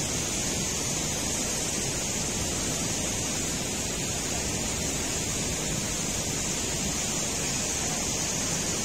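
River water rushing steadily through a narrow rock gorge: an even, unbroken wash of noise.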